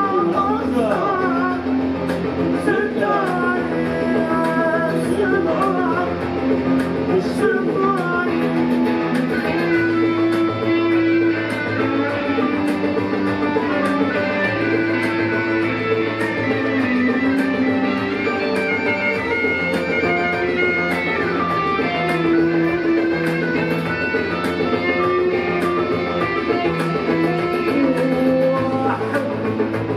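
Live band music: electric guitar playing over keyboard chords and long held low notes.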